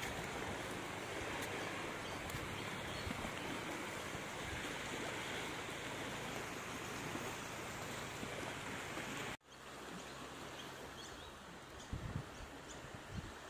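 Flood-swollen river rushing past: a steady, dense rush of moving water. About nine seconds in it cuts out abruptly and comes back quieter, with a couple of low thumps near the end.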